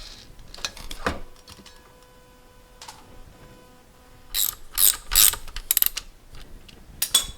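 Metal clicks, clanks and rattles of hand work on the lathe's adjustable motor bracket as the heavy motor is lowered: a few knocks about a second in, a quick run of louder clanks in the second half, and a last cluster at the end.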